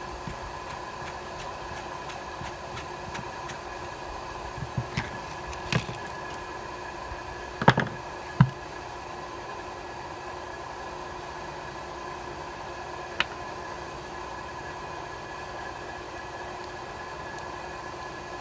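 Scattered clicks and knocks from the plastic housing and brush parts of an electric impact wrench being handled and fitted together by hand. There is a cluster of them from about a quarter of the way in to about halfway, and one more later, over a steady background hum. The motor is not running.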